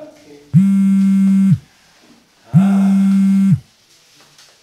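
Mobile phone ringing with a flat, buzzing ring tone: two rings about a second long each, two seconds apart.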